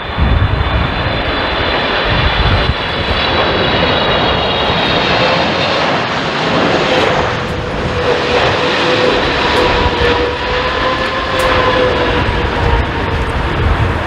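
Japan Airlines Boeing 777-300ER's GE90 turbofan engines on final approach, passing close: loud steady jet noise with a high fan whine that falls slightly in pitch, then a steadier engine tone. A gusty low rumble of strong wind buffets the microphone underneath.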